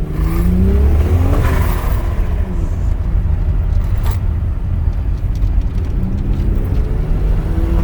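Turbocharged VR6 engine heard from inside the car, pitch rising as it accelerates in the first two seconds, then pulling steadily, with another rise near the end. A sharp click about four seconds in.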